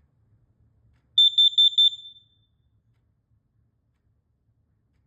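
Carbon monoxide alarm sounding on test: four rapid, loud, high-pitched beeps about a second in, each ringing out briefly. This is the four-beep pattern that a CO alarm uses.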